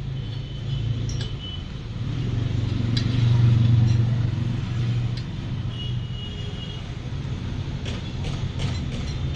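A steady low engine hum that swells for a couple of seconds in the middle, with a few faint clinks near the end.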